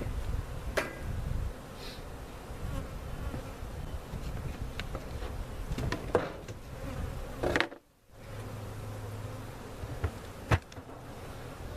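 Many honey bees buzzing around an opened hive, a steady hum, broken by a few sharp knocks.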